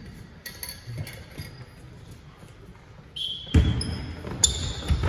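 A basketball bounces on a sports-hall floor with a loud thud about three and a half seconds in. Short high sneaker squeaks on the court come just before it and several more follow near the end.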